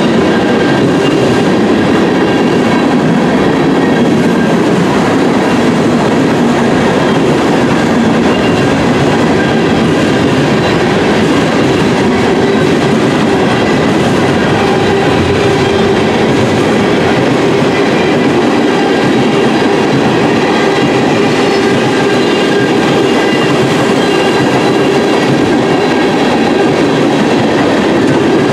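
Hopper and tank cars of a mixed freight train rolling past close by: a loud, steady rumble and clatter of steel wheels on the rails, with faint high steady tones above it.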